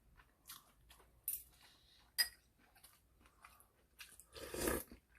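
People eating at a table: quiet chewing with a few scattered sharp clicks, and a louder noisy burst about half a second long near the end.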